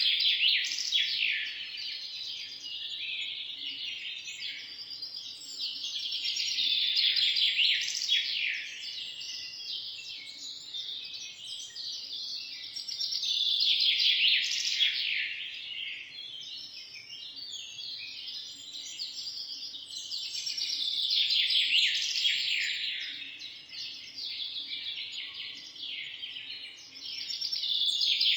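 Songbirds chirping and singing in rapid, dense high-pitched trills that swell into louder bouts about every seven seconds, with quieter chirping in between.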